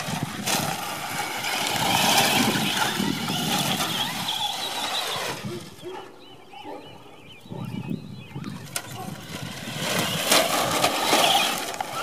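Electric radio-controlled trucks driving on loose dirt: brushless motors whining as the tyres spin and scrabble over dirt and gravel. It is loud for the first few seconds, drops back around the middle, and picks up again near the end.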